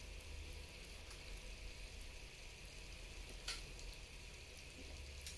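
Faint room tone: a steady low hiss and hum, with one short click about three and a half seconds in.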